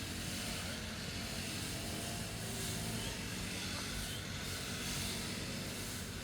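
Grass-cutting machine's small engine running steadily with an even hum and a wide hiss.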